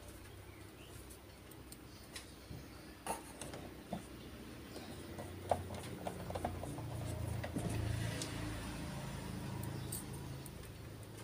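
Scattered light clicks and taps of small screws, a servo and a small screwdriver being handled while a steering servo is fitted to a miniature truck chassis. A low rumble swells up about halfway through and eases off near the end.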